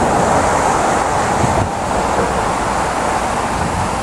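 A fast mountain creek rushing over rocks and small rapids: a steady, loud rush of water with a low rumble underneath.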